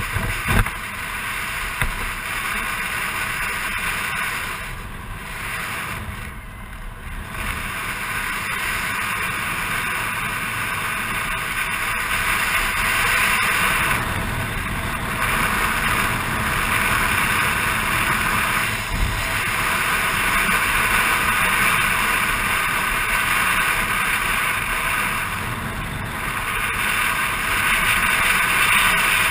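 Motor scooter riding at road speed, heard as a steady rush of wind over the microphone with engine and road rumble underneath; the rush eases briefly a few times.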